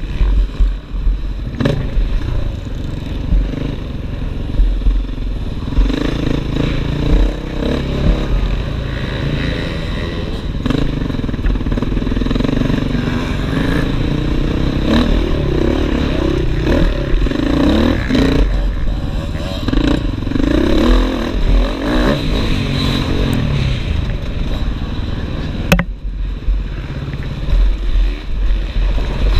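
Off-road motorcycle engine revving hard, its pitch rising and falling repeatedly as the rider works the throttle, heard close up from the bike itself, with a couple of sharp knocks.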